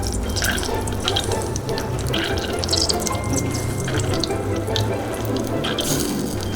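Water running steadily from a kitchen tap into a sink, with small splashes.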